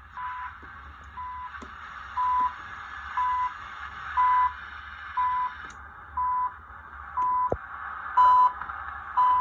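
1936 RCA 5T valve radio receiving a repeating beep signal: a steady high beep of about a third of a second, once a second, over a bed of hiss and static from the set's speaker.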